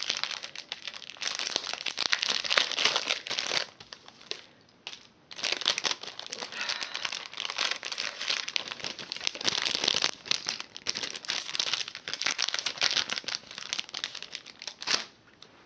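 Clear cellophane packaging crinkling as a bag of chipboard die-cut pieces is opened and the pieces are pulled out, with a short lull about four seconds in.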